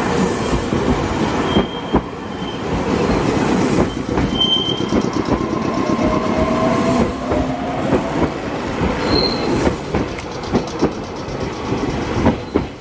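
Electric train passing slowly, its wheels clacking over the rail joints at an uneven, slow rate. Brief high wheel squeals come and go, with a lower gliding whine around the middle.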